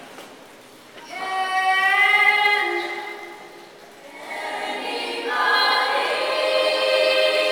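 Young choir, mostly girls' voices, singing held chords: the first comes in about a second in, swells and fades, and after a short dip a second, fuller chord comes in and is held.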